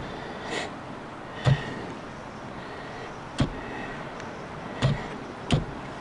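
A plastic gold pan being worked with water while the concentrate is washed down. Sharp knocks come every one or two seconds, five in all, over a steady rushing background.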